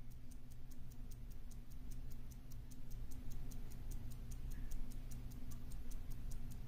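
Restored Hamilton 992 pocket watch ticking steadily, about five ticks a second, over a low steady hum.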